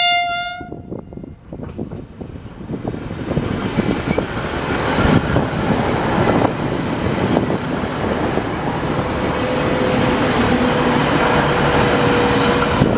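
V/Line VLocity diesel multiple unit sounding one short horn note that cuts off within the first second, then passing close by at speed. A loud rush of wheels on rail and underfloor diesel engines builds from about two seconds in, with a faint steady whine joining in the second half.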